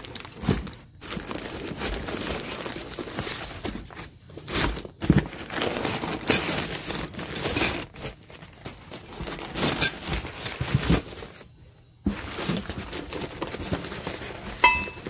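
Crumpled kraft packing paper rustling and crinkling, along with plastic bags of hardware, as hands dig through a cardboard parts box. It is an irregular, continuous rustle with sharp crackles and stops briefly near the end.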